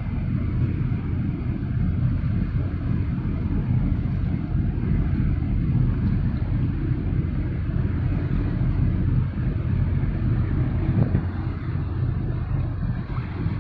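Steady low engine rumble of a boat under way on the water, with a light even hiss above it.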